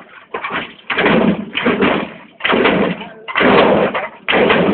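Hydraulic pumps of a 1964 Chevrolet Impala lowrider firing in repeated bursts as the front end is hopped. There are about five bursts, each under a second, with short gaps between.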